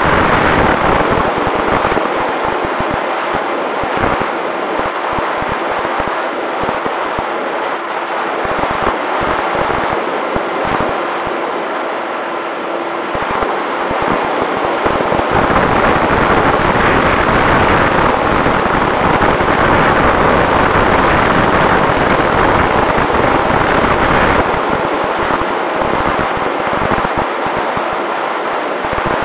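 Wind rushing and buffeting over the onboard camera's microphone on a Volantex Ranger 1600 RC plane in flight, with a faint steady tone from its electric motor and propeller underneath. The rush grows louder for a stretch in the middle.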